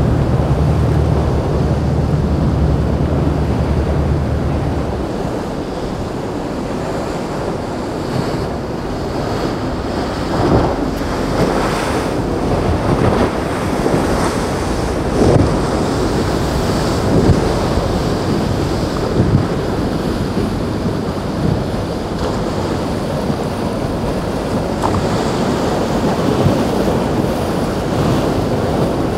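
Wind buffeting the microphone over the rush of rough surf, with waves and boat wake crashing at irregular intervals, most often in the middle. For about the first five seconds a low boat-engine drone runs underneath, then stops abruptly.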